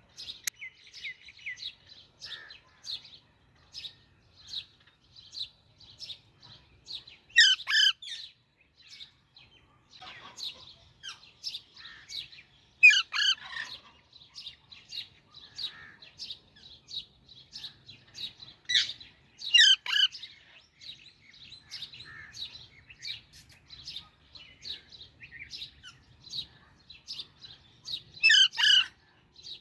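Baby Alexandrine parakeet chirping in a steady run of short, high chirps, two or three a second. It breaks into a louder, harsh squawk four times.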